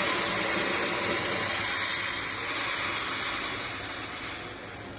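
Hot water hissing in a pan on the stove, a steady bright hiss that dies away near the end.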